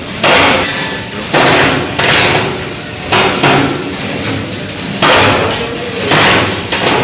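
Steel being struck on a construction site: about six loud metallic clanks at irregular intervals of roughly a second, each ringing out briefly.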